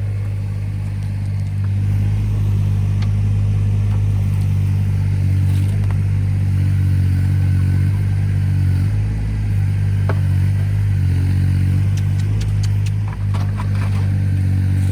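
Engine of a machine running steadily under load while tree stumps are pulled out, its note rising and falling a little, with some clattering in the second half.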